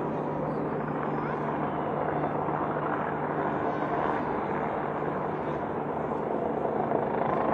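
Distant fireworks display heard as a continuous rumble and crackle, mixed with a murmuring crowd and a steady low hum underneath.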